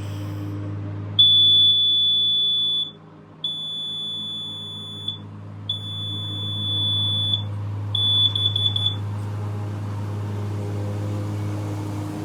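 Kidde KN-COEG-3 carbon monoxide and explosive gas alarm sounding its push-button test: three long, high-pitched beeps, then a quick run of short chirps about eight seconds in.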